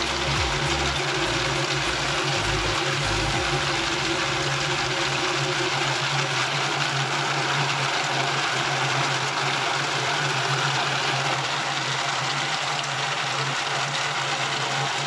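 Kadıoğlu CKS 80D variable-speed walnut hulling machine running steadily: its motor hums while the perforated abrasive drum churns a load of green walnuts under a water spray, stripping the husks.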